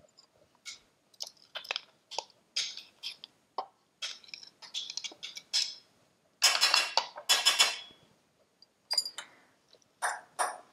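A fork scraping and tapping chopped onion out of a plastic chopper bowl into a stainless steel saucepan: a string of light clinks and scrapes, with two longer, louder scrapes a little past the middle.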